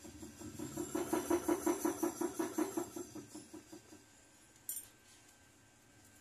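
Jeweller's soldering torch flame playing on a bangle's joint, running with a rhythmic pulse of about five beats a second, then cut off about four seconds in. A single sharp click follows shortly after.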